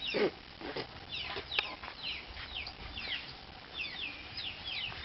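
Chicks peeping: many short, high chirps that fall in pitch, overlapping several times a second.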